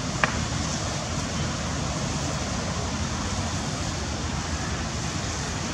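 Steady rushing outdoor background noise, with one short sharp click about a quarter second in.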